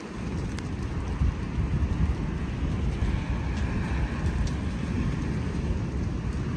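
Thunder rumbling, beginning abruptly and rolling on for several seconds, over steady rain with scattered raindrop ticks.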